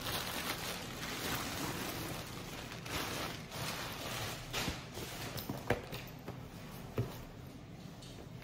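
Clear plastic bag crinkling and rustling as a leather vest is pulled out of it and handled, with a few sharp clicks in the second half, the loudest two about a second apart.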